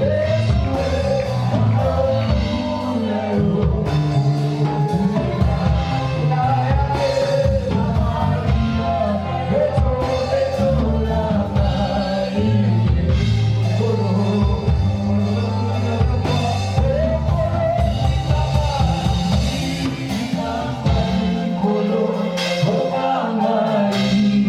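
Live worship band music with singing, bass guitar and drum kit.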